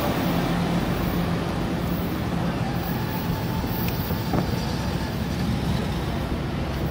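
Amtrak Pacific Surfliner train pulling out: the steady low rumble of its F59PHI diesel locomotive and the cars rolling on the rails. A faint high whine comes in about two seconds in and fades by about five seconds.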